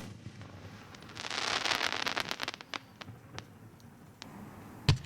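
Fireworks: a bang, then a dense crackling of rapid pops for about a second and a half, a few scattered pops after it, and a sharp bang near the end.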